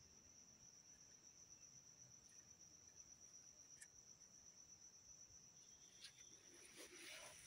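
Near silence with a faint, steady, high-pitched whine, a few faint ticks, and a brief soft rustle near the end.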